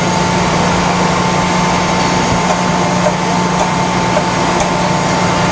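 Moore No. 2 jig grinder running: a steady machine hum with a thin, constant whine over an even hiss.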